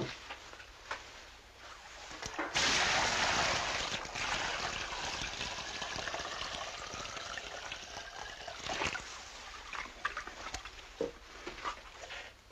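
Water sloshing and splashing in a bucket as an inflated bicycle inner tube is pushed into it to check a fresh patch for leaks. The water noise starts suddenly a couple of seconds in and slowly settles, with small handling knocks.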